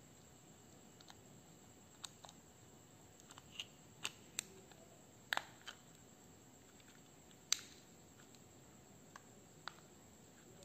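Quiet scattered clicks and taps of a small plastic box being handled and its snap lid pressed shut over the alarm circuit, with two sharper clicks near the middle.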